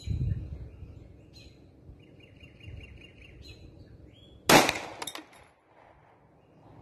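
A single shot from a Remington RP9 9mm pistol firing a 115-grain full metal jacket round, a sharp crack about four and a half seconds in.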